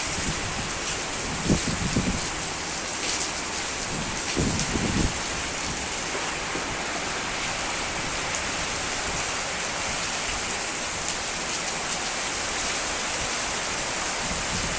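Steady hiss of heavy rain in strong wind, with a couple of brief low gusts buffeting the microphone about a second and a half and four and a half seconds in.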